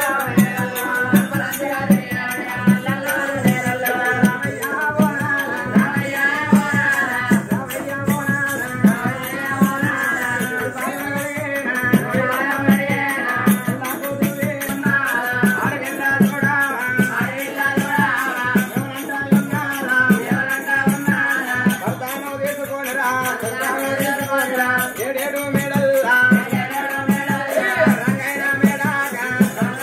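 Oggu katha folk music: a wavering melody over a steady drum beat of about two strokes a second, with metallic jingling throughout.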